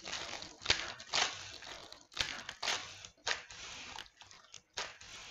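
Trading card packs and cards being handled: irregular crinkling and rustling of foil pack wrappers and cards as packs are opened and sorted.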